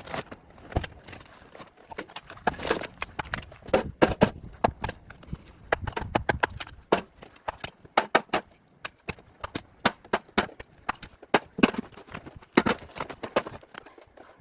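A rapid, irregular series of sharp knocks and clicks, several a second, like hard objects or steps striking one another.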